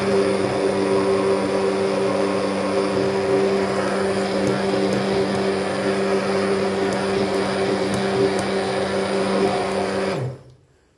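Tefal Powelix ActivFlow Expert 1500 W hand blender motor running steadily at one even pitch while blending strawberries, banana and ice cream into purée in a plastic beaker. It is switched off about ten seconds in and winds down quickly.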